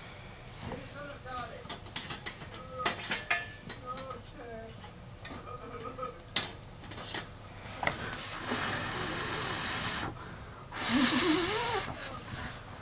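Metal tools clicking and scraping against the steel grill and body of a wood gas camping stove while a burger is tended. About eight seconds in, a steady hiss sets in, and it swells into a louder rushing hiss for about a second near the end.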